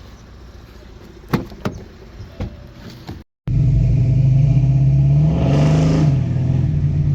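A few sharp knocks and clicks, then the Holden VF Commodore's engine running loud and steady after a sudden cut, revving up briefly and settling back.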